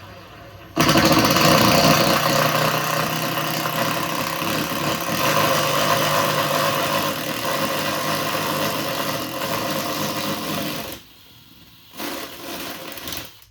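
Power drill running under load, boring a 1-inch hole through wooden ceiling framing, for about ten seconds. It stops, then runs again briefly near the end.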